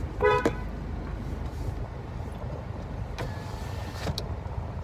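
Car engine idling, heard from inside the cabin, as a steady low rumble. A short high tone sounds briefly near the start, and there are a couple of faint clicks later.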